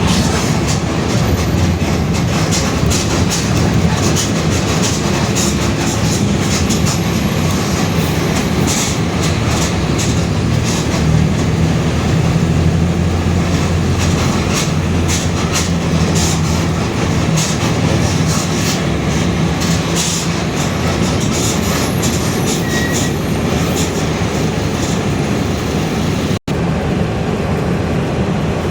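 Inside a moving Mercedes-Benz OF-1721 city bus: the diesel engine and a growling rear differential hum steadily, with body and window rattles over the top. The sound cuts out for an instant near the end.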